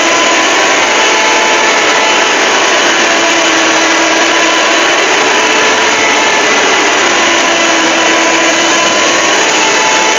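Loud, steady, harsh static-like noise with faint held tones underneath, from a heavily distorted mock emergency-alert alarm track.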